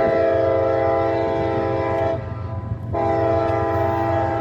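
Diesel locomotive's multi-chime air horn sounding two long blasts, the first breaking off about two seconds in and the second starting about a second later, over the steady low rumble of the train.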